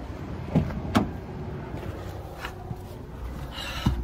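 Someone getting into a car's driver's seat: low rumbling handling and movement noise, with two sharp clicks about half a second and a second in and a brief rustle near the end.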